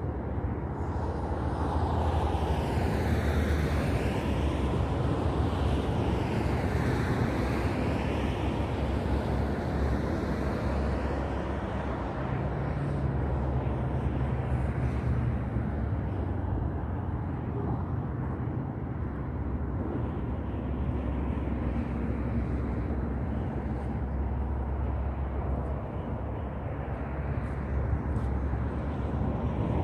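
Steady low rumble of outdoor traffic and wind, with a louder passing vehicle swelling and fading over the first ten or so seconds.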